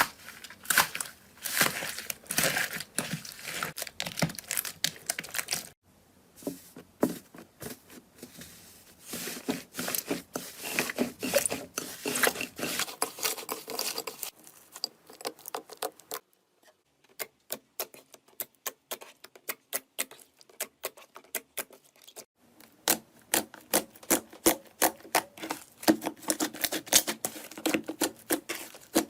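Slime being squeezed and poked by hand, giving rapid trains of sharp clicks, pops and crackles. The sound changes abruptly several times as one slime clip gives way to the next.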